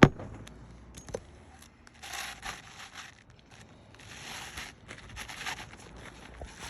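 Asphalt roof shingles being lifted and pried up: a sharp knock at the start, then several bursts of scraping and crinkling as the shingle tabs come loose from their sealant.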